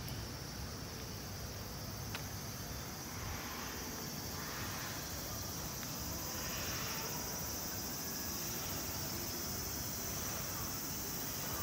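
A steady, high-pitched chorus of insects shrilling, over a low background rumble.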